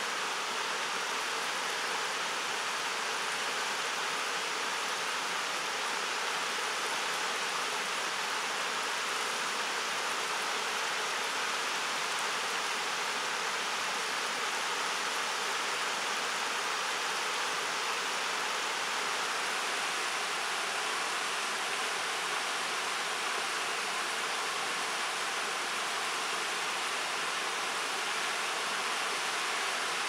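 River water running fast over a shallow, rocky riffle: a steady, even rush of flowing water with no breaks.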